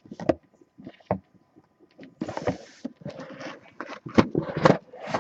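Handling noise as dropped things are picked up and set down: a string of taps and knocks, with a brief scrape about two seconds in and the loudest knocks near the end.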